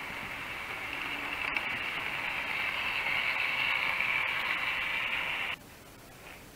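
Model train running on the layout's track: a steady whirring hiss that grows louder, then cuts off abruptly about five and a half seconds in, leaving only faint hiss.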